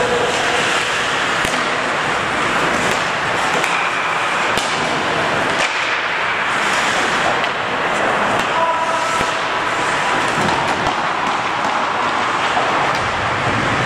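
Ice hockey play in a rink: a steady wash of skates scraping and carving the ice, with scattered sharp clacks of sticks and puck and a brief shout from a player about two-thirds of the way through.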